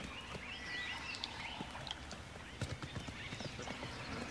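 Footsteps of a nyala and baboons on dry, hard ground: irregular light hoof and foot taps, with high chirping calls in the background.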